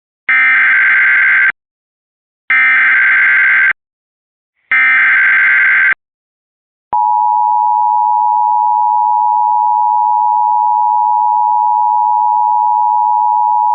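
Emergency Alert System header: three short bursts of warbling SAME digital data tones, then about seven seconds in, a steady two-tone attention signal begins and holds. The sequence announces an emergency alert, here a flash flood warning.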